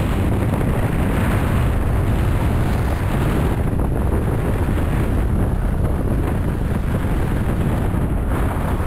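Wind buffeting the microphone of a camera carried by a skier descending a piste at speed: a loud, steady low rumble with a rushing hiss.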